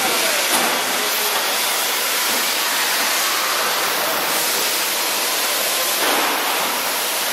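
Steady, loud hiss of factory floor noise from running machinery, swelling briefly about six seconds in.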